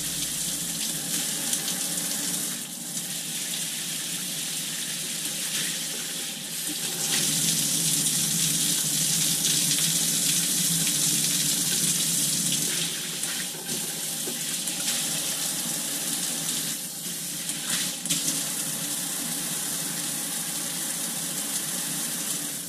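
Water spraying from an ANZA handheld shower head and splashing below, a steady hiss that grows louder and brighter for several seconds in the middle as the spray pattern changes.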